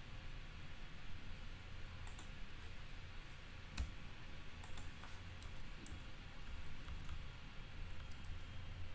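Scattered clicks of a computer mouse and keyboard as a document is edited, a few at a time with gaps between them, over a low steady hum.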